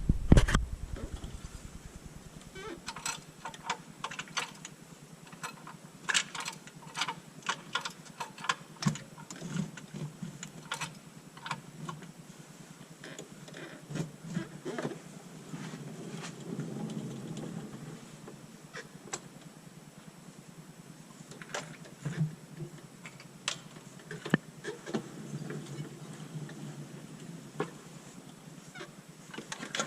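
Irregular metal knocks and clicks from a T56 manual transmission on a transmission jack being worked into place under a car, with one heavy thump right at the start.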